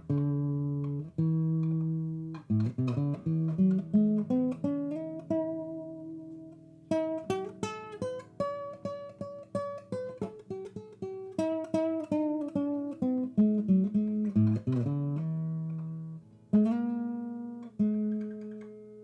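Background music: a solo guitar playing plucked notes and chords that ring out and fade near the end.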